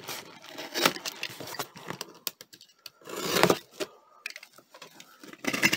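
Box cutter slicing through packing tape and plastic wrap on a cardboard box: irregular clicks and short scrapes of the blade on tape and cardboard, with one louder, longer scrape about three seconds in.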